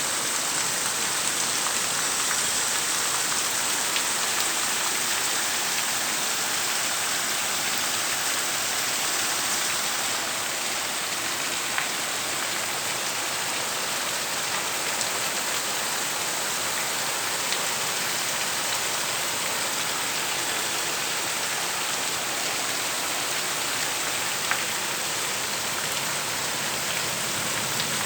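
Heavy rain falling steadily, a dense even hiss with a few sharper single drop taps standing out now and then.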